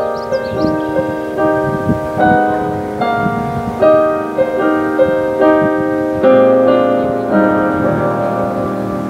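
Piano music: a gentle piece of notes and chords changing about every half second, settling near the end into held chords that slowly fade.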